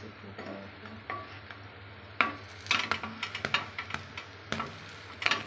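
Wooden spatula scraping and knocking against a flat griddle (tawa) as a besan chilla is pressed and turned, over a faint sizzle of frying. The scrapes start about two seconds in and come in quick clusters.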